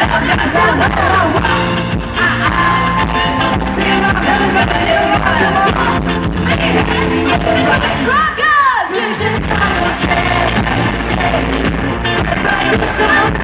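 Live pop music amplified over a PA, with a singer singing into a microphone over a steady beat. About eight seconds in the bass drops out for a moment under a falling swoop, then the beat comes back in.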